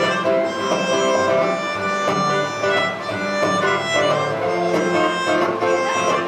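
Acoustic string band playing a song's instrumental intro live, a bowed string melody over plucked strings and a moving bass line.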